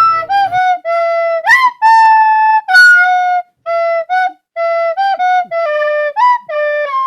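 Music: a single-line melody of short held notes on one instrument, with a few notes slid up into, about one and a half seconds in and again near the end.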